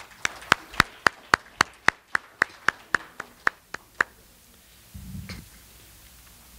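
One person clapping steadily, about four claps a second, stopping about four seconds in.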